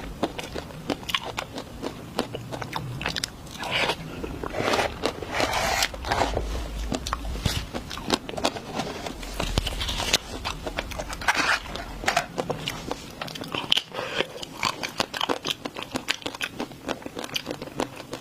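Close-miked eating of desserts: a steady stream of bites, crunching and chewing with crackling, wet mouth sounds, a few louder, longer bites or slurps in between.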